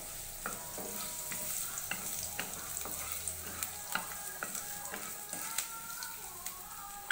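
Chopped garlic sizzling in hot oil while a wooden spatula stirs it, scraping and tapping against the pan many times.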